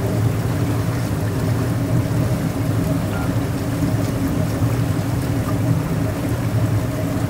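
Tour boat's motor running steadily, a low hum that holds one pitch over a constant wash of noise.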